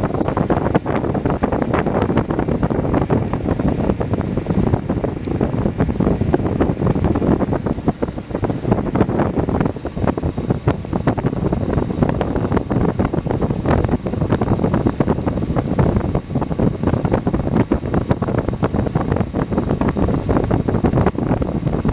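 Chevrolet 3500 truck engine running steadily at idle, heard up close at the front of the engine by its belt and pulleys.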